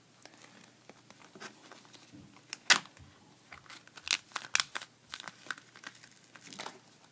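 Handmade duct tape wallet being handled and flipped open close to the microphone: scattered crinkling and clicks of the stiff taped panels. The loudest is a sharp click about two and a half seconds in, followed by a quick run of them around four to four and a half seconds.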